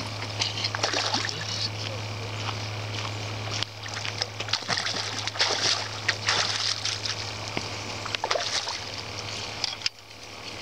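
A hooked steelhead thrashing and splashing at the water's surface as it is played on a rod, in irregular bursts of splashes. A steady low hum runs underneath.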